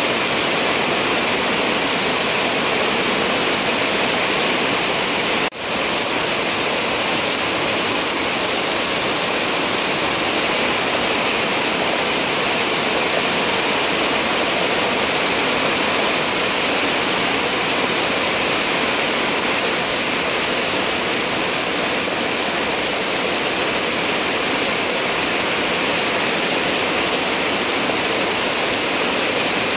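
Heavy rain pouring steadily onto wet concrete and puddles, a dense even hiss. It dips for an instant about five and a half seconds in.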